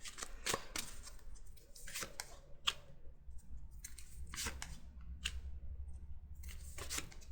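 A deck of tarot cards being shuffled by hand: a string of short, crisp flicks and rustles of card stock at irregular intervals.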